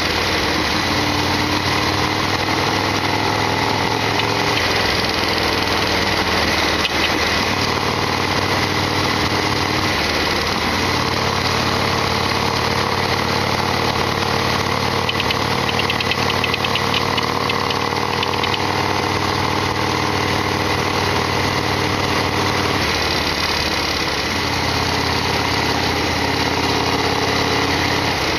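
Harley-Davidson Sportster XL1200R's air-cooled V-twin engine running. Its note shifts to a new steady speed a few times, about five, eleven and twenty-three seconds in.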